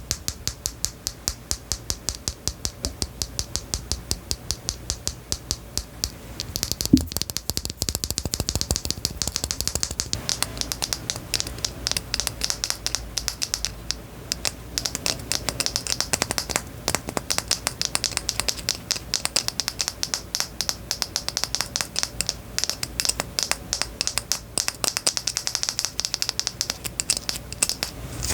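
Close-miked ASMR trigger sounds: a steady run of sharp clicks, a few a second. From about 7 seconds in, a denser crackly rustle joins them.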